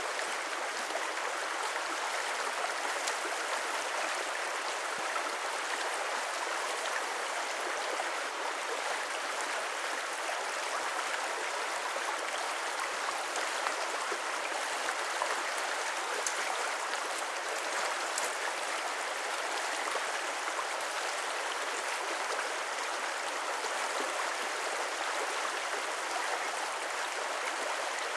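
Small brook rushing steadily, an even wash of running water with no breaks.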